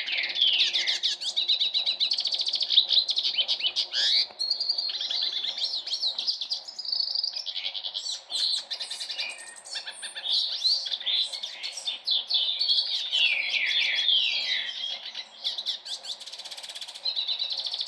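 Male hooded siskin (pintassilgo) singing: a long, rapid twittering song of fast trills and short downward-sliding notes, broken by a few brief pauses.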